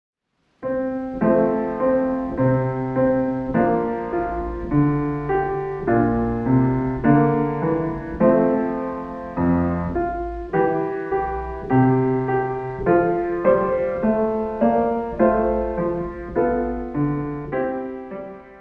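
Background piano music: a gentle, evenly paced run of struck notes and chords that starts about half a second in and fades out near the end.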